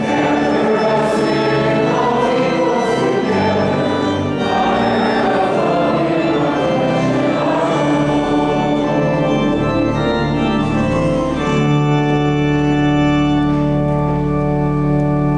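Organ and choir singing a hymn in a large church, ending on a long held chord for the last few seconds.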